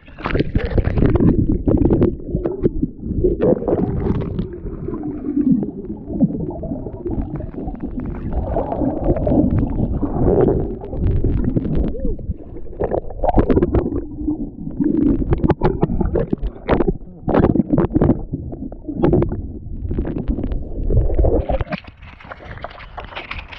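Muffled water gurgling and sloshing close to the microphone, with frequent knocks and bubbling, as the camera goes into the sea while snorkelling. Near the end it drops to a quieter hiss.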